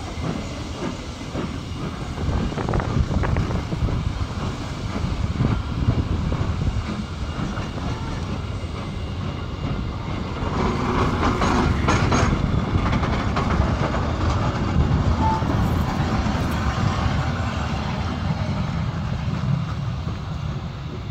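Passenger carriages of a steam-hauled train rolling past, with a steady rumble and wheels clacking over the rail joints. About halfway through comes a louder stretch of rattling and clanking, and the sound eases off near the end.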